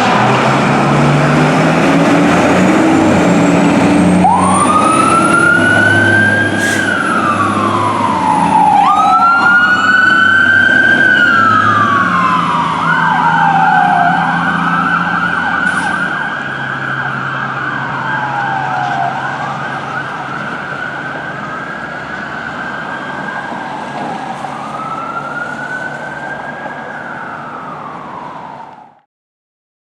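Fire apparatus responding: low air-horn tones at the start, then an electronic siren on wail, its pitch repeatedly rising and falling in slow cycles, with a second wail overlapping for a few seconds. The sirens fade as the vehicles pull away, and the sound cuts off near the end.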